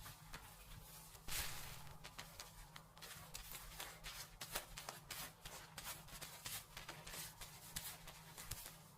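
Fingers rubbing and scratching through hair and scalp during a dry hair wash and head massage: a continuous crackling rustle of many quick scratchy strokes, with a longer rub about a second in.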